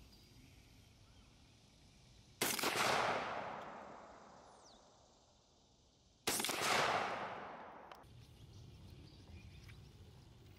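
Two shots from a Browning Maxus II 12-gauge semi-automatic shotgun firing 3-inch #6 shells, about four seconds apart. Each blast is followed by a long echo that dies away over about two seconds.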